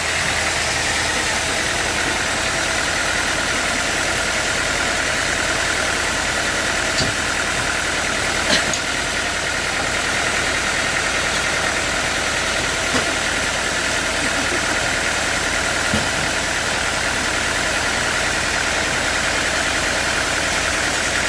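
Sawmill machinery running steadily, with a few brief sharp knocks.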